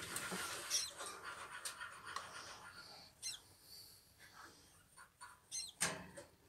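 Faint, high, wavering peeps from a hatching kakariki chick, four or so short ones, over soft rustling and scratching in the nest litter as the hen shifts.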